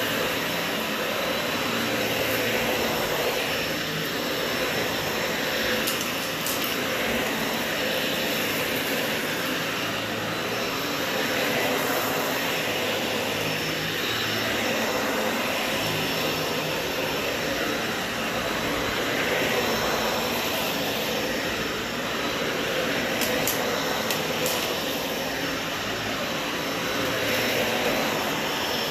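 Dyson upright vacuum cleaner running on thick carpet: a steady whir of motor and brush bar that swells and eases with each push-and-pull stroke. A few brief ticks come through twice, about a quarter of the way in and again near the end.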